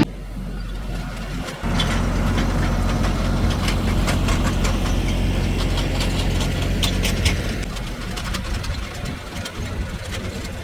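Kioti NS6010 tractor's diesel engine running steadily under load, a low drone that gets louder about two seconds in and eases off near the end. Scattered clicks and crackles come through over it.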